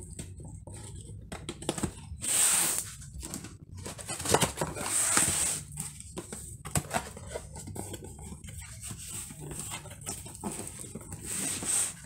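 Cardboard speaker box being opened and handled: irregular scraping, rustling and sliding of cardboard flaps and packaging, with scattered sharp clicks and knocks.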